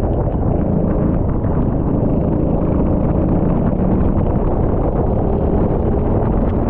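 Rental go-kart's small engine running steadily, its pitch drifting slightly.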